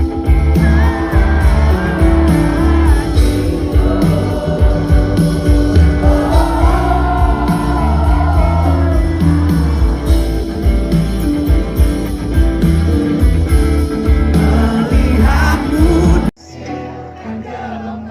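Live band music with a singer, recorded from within the concert crowd. The full band sound drops away suddenly about sixteen seconds in, leaving quieter music.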